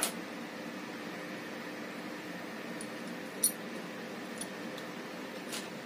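Small steel parts of a ratchet torque wrench head clicking and clinking as they are handled and fitted: a sharp click at the start, a bright metallic clink about three and a half seconds in, and a few lighter ticks after it, over a steady low hum.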